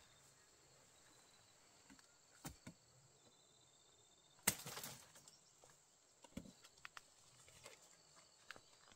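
Quiet ambience: a faint steady high insect drone with a few scattered knocks and clicks. The loudest is a short clatter about four and a half seconds in.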